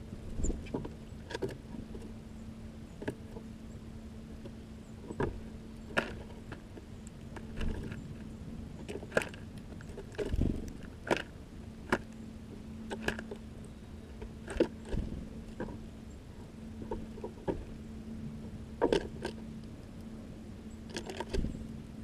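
Tufted titmouse pecking and rummaging in loose birdseed on the floor of a small enclosed feeder, heard as sharp taps and rustles at irregular intervals.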